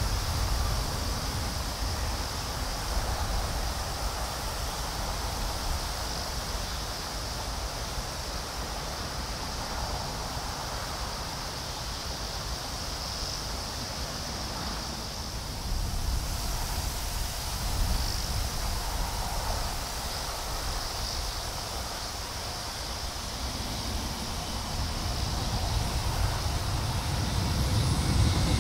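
A freight train's wheels rumble on the rails, fading as it moves away, over a steady high buzz of insects. In the last few seconds the noise of an approaching EH500 electric locomotive-hauled freight train grows louder.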